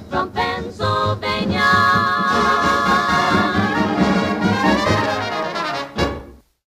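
Instrumental passage of old-time popular music led by brass, with held notes sung out in vibrato, closing on an accented final chord about six seconds in and dying away.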